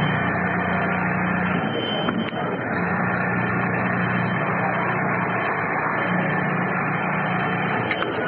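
VI.BE.MAC automatic pattern sewing machine running, its needle stitching through cloth held in an aluminium template clamp: a steady mechanical hum with a brief dip about two seconds in.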